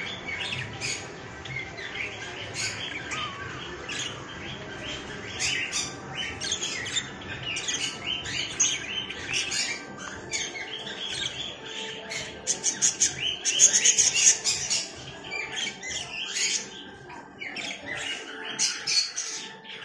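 A cage of budgerigars chirping and chattering, many short calls overlapping continuously. A louder flurry of rapid, shrill chirps comes about two-thirds of the way in.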